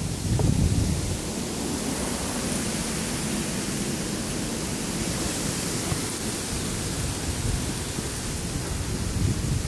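Steady rushing noise of wind on the phone's microphone, with a low rumble that swells about half a second in and again near the end.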